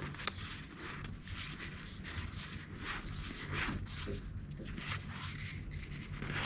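Stiff game cards sliding against one another as they are pushed through a hand one by one: a string of short, soft swishes, about one or two a second, at an uneven pace.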